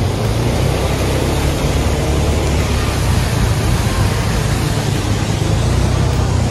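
Motorcycle on the move: a steady engine rumble under an even rush of wind noise on the helmet-mounted microphone.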